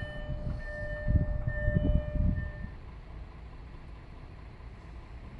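Level crossing warning signal ringing in broken stretches, stopping about two and a half seconds in, over irregular low rumbling that is loudest just before the ringing stops.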